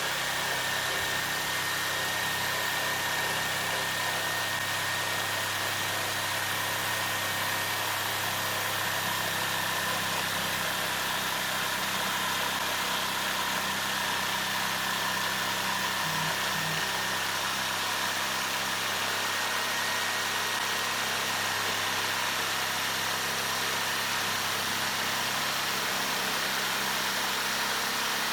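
Bosch PST 800 PEL electric jigsaw running steadily at constant speed, its motor giving a continuous mechanical whine with a steady buzz.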